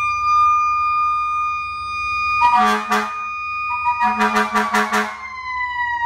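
Fire truck air horns and a siren: the siren holds a high steady wail that begins to wind down near the end. The air horns sound two loud blasts about halfway through, then a rapid series of about five short blasts about four seconds in.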